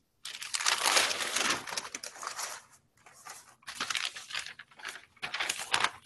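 Sheets of painting paper rustling and crinkling as the painted sheet is lifted away and a fresh sheet laid out, in three spells, the first and longest lasting over two seconds.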